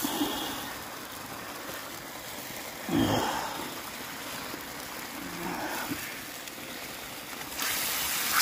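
Raw chicken pieces going into hot oil and masala in an iron wok, sizzling steadily, with a thump about three seconds in. Near the end the sizzling grows sharply louder as the rest of the chicken is tipped in.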